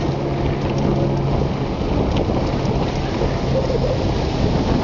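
Wind buffeting a small digital camera's built-in microphone during a bicycle ride: a steady, loud, low rumbling noise.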